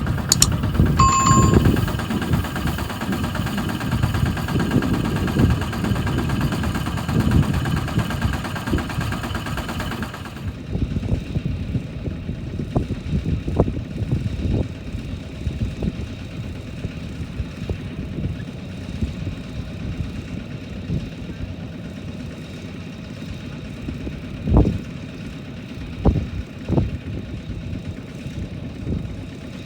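Tractor engine running: loud and busy for about the first ten seconds, then suddenly quieter and steadier, with a few sharp knocks near the end.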